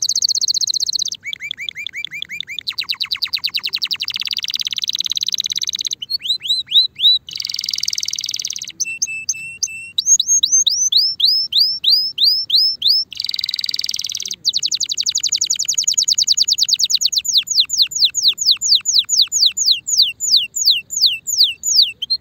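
Male Spanish Timbrado canary in breeding condition singing a long song. It is a string of phrases, each a fast run of one repeated note: falling whistled notes, dense rolling trills and short raspy rattles. The longest phrase, in the second half, is a run of falling whistles at about six a second.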